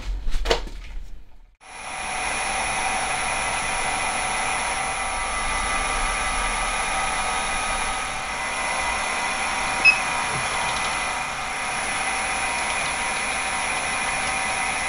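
Small milling machine spindle running steadily, a constant whine over a hiss, with its tool at the cast aluminium cylinder block. A few handling clicks come just before it starts, and there is one short click about ten seconds in.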